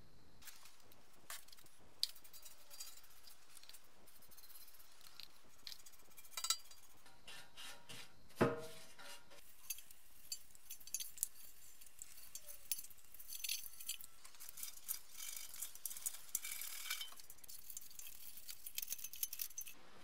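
Scattered light clinks and clicks of workshop handling during paint stripping of a steel motorcycle fuel tank. There is one louder ringing clink about eight and a half seconds in, and a busier run of small clicks in the second half.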